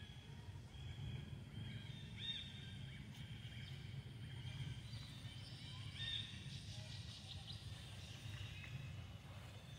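Faint outdoor ambience: short, high-pitched chirping calls come and go, loudest about two seconds and six seconds in, over a low steady rumble.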